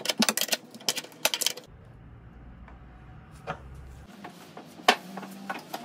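Metal wrench clicking quickly on a nut as a leg-bracket bolt is tightened. The clicking stops about a second and a half in, followed by a few scattered clicks and taps.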